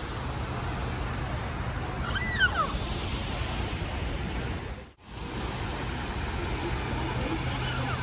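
Steady outdoor background noise with a low hum, and a bird's short whistled chirp about two seconds in. The sound drops out for an instant about five seconds in.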